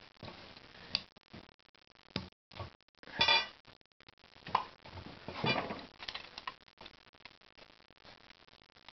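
Small clicks, taps and scraping rustles of a diecast scale model truck being handled and its parts moved, with two longer scraping sounds about three and five and a half seconds in.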